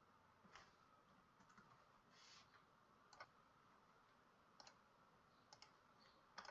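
Near silence with a few faint, irregular computer mouse clicks.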